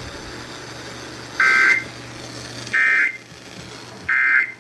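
Three short bursts of two-pitched EAS/SAME digital data tones, evenly spaced a little over a second apart, from a NOAA Weather Radio broadcast. This is the End of Message code that closes the severe thunderstorm warning.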